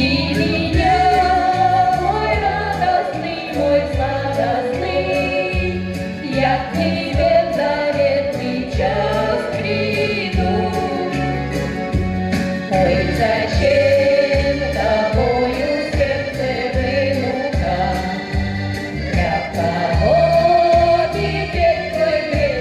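A Russian song sung by two women's voices in harmony over an instrumental backing with a regular bass beat.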